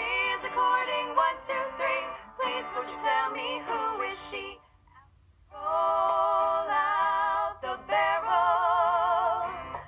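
Two women's voices singing in harmony, with acoustic guitar accompaniment. The song breaks off for about a second near the middle, then resumes with long held notes with vibrato.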